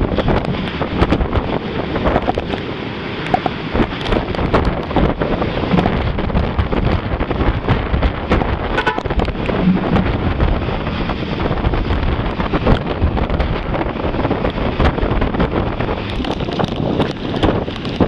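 Strong typhoon wind gusting hard against the microphone, a loud continuous rush and buffeting. Traffic passes on the wet road beneath it.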